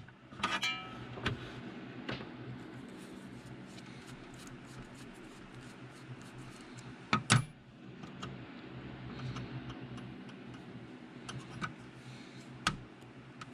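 Small metallic clicks and taps from a screwdriver working in a Walbro chainsaw carburetor body and from small carb parts being handled. A short metallic ring comes about half a second in and a sharper knock about seven seconds in, over a faint steady hum.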